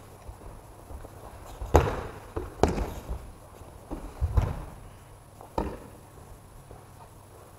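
Thuds and slaps of bodies hitting tatami mats as aikido partners are thrown and take breakfalls: about half a dozen impacts, the loudest two close together about two seconds in, each echoing briefly in the big hall.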